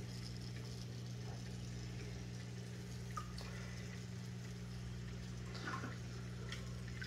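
Reef aquarium equipment running: a steady low hum from the tank's filtration gear, with water trickling and a few faint drips.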